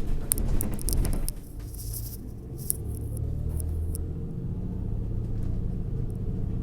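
A car being driven: steady low rumble of engine and road noise, with a few short clicks and rattles in the first couple of seconds.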